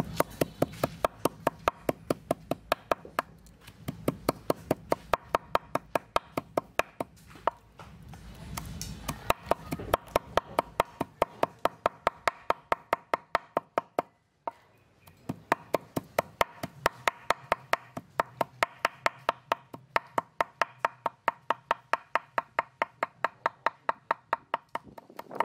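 Kitchen knife chopping and mincing small fish on a wooden cutting board: rapid, steady knocks of the blade on the wood, about four or five a second, with one brief pause about halfway through.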